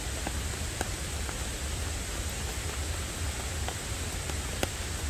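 Heavy rain falling steadily on a tarp and a wooden deck: an even hiss with scattered sharp drips tapping here and there.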